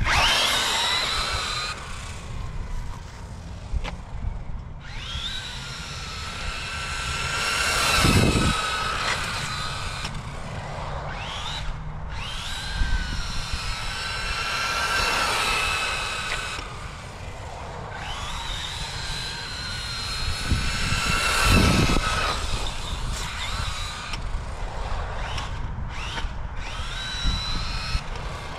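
Brushless electric motor and drivetrain of a 1/8-scale RC short-course truck whining as it accelerates hard, the pitch rising again and again over several runs. The sound swells louder twice, about 8 and 22 seconds in.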